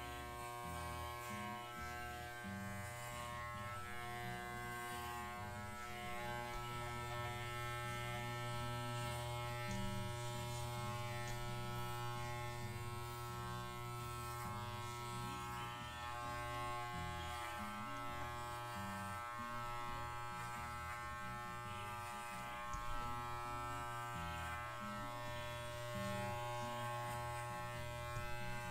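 Corded electric pet clippers buzzing steadily as they trim a miniature schnauzer's coat on the head and neck.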